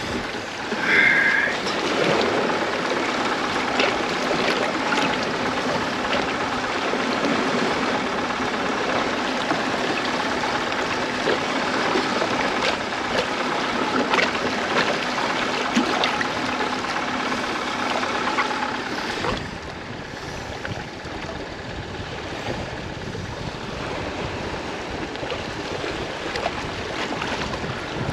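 Water washing and lapping against a seawall, with a steady low hum that drops away about two-thirds of the way through.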